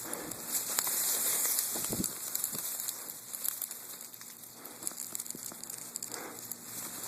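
Rustling and crackling noise with many scattered small clicks and a dull thud about two seconds in.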